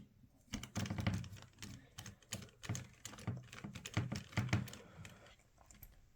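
Irregular clicking and tapping of a small screwdriver and hands working on a Samsung Galaxy Note 5's mid-frame as its screws are taken out, a quick clatter that eases off near the end.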